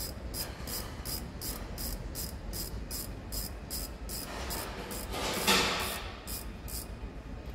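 Worn water pump turning with an even ticking, about three ticks a second, the noise of its failing bearing. A louder scrape breaks in about five and a half seconds in.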